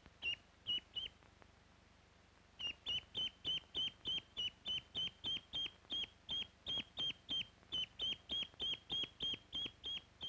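Newly hatched duckling peeping over and over, each peep a short, high call that drops sharply in pitch. A few peeps come first, then a pause of about a second and a half, then an unbroken run of about three a second. These are distress peeps: the duckling is upset at losing the object it has imprinted on.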